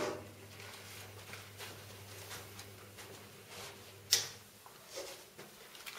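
Faint rubbing and light ticks from a laminated print being fed through a desktop laminator and wiped with a rag, over a low steady hum, with a sharp click about four seconds in and a smaller one a second later.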